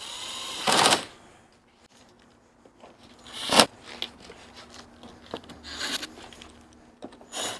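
Hands-on handling sounds around the car's front end: a short hiss at the start, then scattered clicks, knocks and rubbing, the loudest knock about halfway through.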